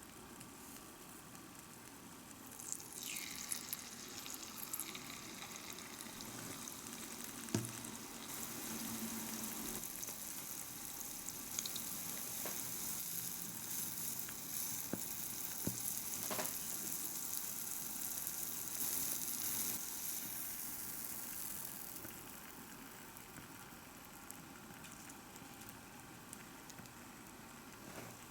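Hot oil sizzling in a miniature pan as a tiny kakiage (shrimp and vegetable tempura fritter) fries. The sizzle starts about three seconds in, is strongest through the middle and dies down near the end, with a few light clicks.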